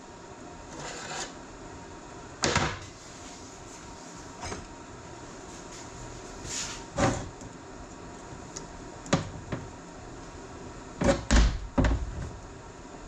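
Scattered knocks and clinks of tools and metal parts being handled while a tractor power-steering valve is taken apart, a few single knocks seconds apart and a quick cluster of louder ones near the end.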